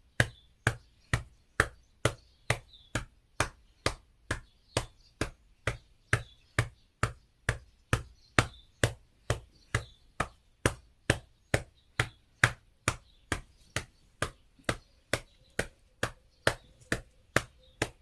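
A hand patting steadily on an elderly person's back, about two firm pats a second: back percussion (pai bei) to loosen phlegm that a cough cannot bring up.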